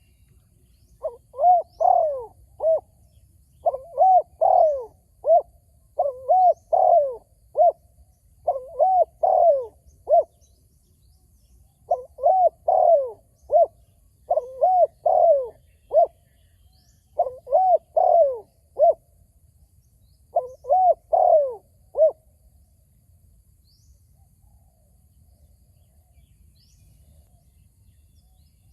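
Spotted dove cooing: a series of short, repeated coo phrases, roughly one every two to three seconds, then falling silent for the last several seconds.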